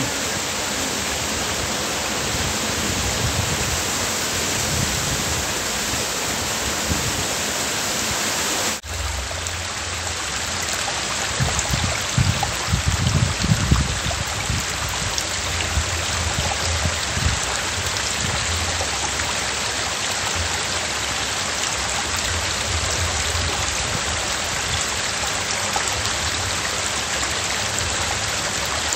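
Small mountain stream rushing over rocks into a pool: a steady rush of water, broken briefly about nine seconds in, with a few low bumps a few seconds later.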